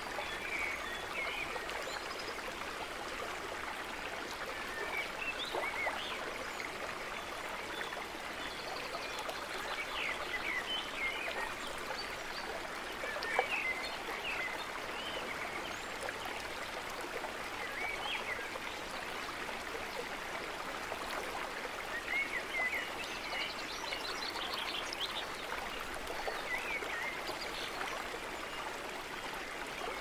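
A shallow, fast river running over stones: a steady rush of water with many small bubbling gurgles scattered through it.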